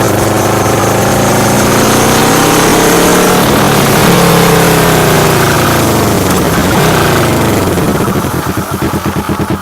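Kawasaki Vulcan S 650 parallel-twin running through a full Delkevic exhaust, pulling through the gears. The engine note rises, drops at a gear change about four seconds in, and rises again. Near the end the throttle closes and it falls to a slower, pulsing low exhaust beat.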